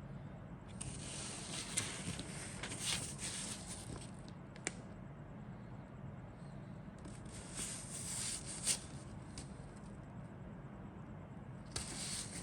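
Rustling and crinkling of plastic bags or paper from a model kit being handled, in three bursts with a few sharp clicks.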